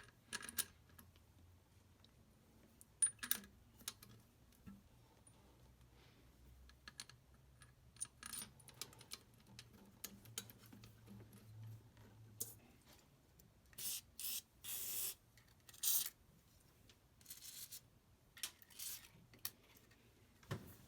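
Light metallic clicks and taps as small metal parts and hand tools are handled during engine work, with a few short scraping rubs about two-thirds of the way in.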